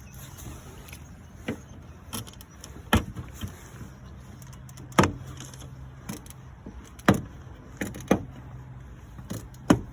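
Sharp plastic pops and clicks, about seven of them a second or two apart, as the white plastic push clips holding a door trim panel are pulled out of the car door.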